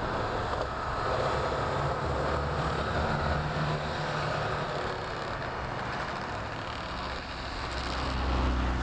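Japanese mini truck's small engine running hard as it ploughs through deep snow, with a steady rushing noise over it.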